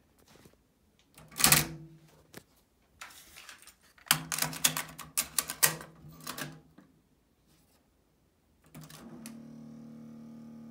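Marantz 5025 cassette deck being loaded by hand: a loud clack about a second and a half in, then a run of plastic clicks and rattles as a cassette is pushed into the holder and the door is shut. Near the end a steady hum starts up from the deck.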